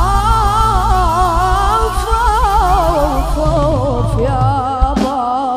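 Live Arabic party music: a boy's melismatic vocal run with wide vibrato, sliding downward, over a sustained keyboard drone and a steady drum beat. The beat stops about three and a half seconds in, and two sharp knocks come near the end.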